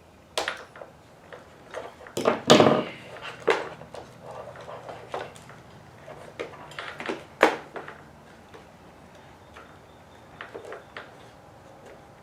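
Hands working on the plastic chassis and wiring of a 1/5-scale RC truck: irregular clicks and knocks, with a louder scraping rustle about two and a half seconds in and another sharp knock near the middle.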